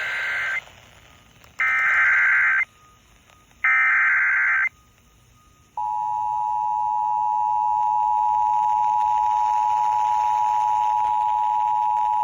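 Emergency Alert System broadcast alert: the end of one burst of the SAME digital header, then two more buzzy data bursts of about a second each, a second apart. About six seconds in, the steady two-tone EAS attention signal starts and holds, announcing a severe thunderstorm warning.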